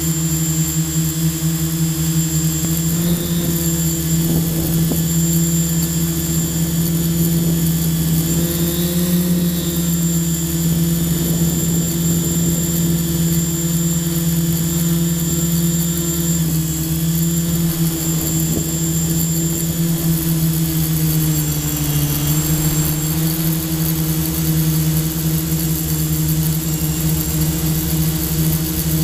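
Quadcopter's electric motors and propellers humming steadily in flight, picked up close by the camera on board, with a thin high whine over a low, even tone. The pitch wavers a little and dips briefly about two-thirds of the way through.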